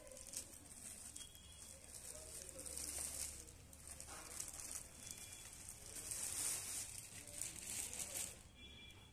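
Clear plastic bag rustling and crinkling as a projector is slid out of it, in uneven waves that die away near the end.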